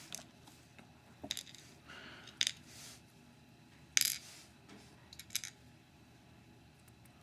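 Small metal lock pins clicking and clinking as they are handled and set down on a hard surface: several separate sharp clicks, the loudest about four seconds in and a quick pair a little after five seconds.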